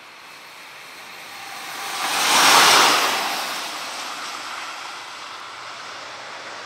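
Red SBB electric locomotive running light, passing close by: a rushing pass-by noise of wheels on rail that swells to a peak about two and a half seconds in, then fades to a steady run as the locomotive moves away.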